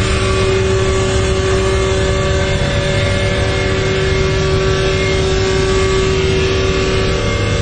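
An engine running steadily: a constant drone with an even low hum that does not rise or fall.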